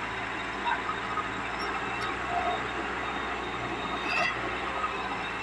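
Hitachi crawler excavator running steadily, its diesel engine and hydraulics working as it moves its boom while climbing onto a truck's lowbed trailer.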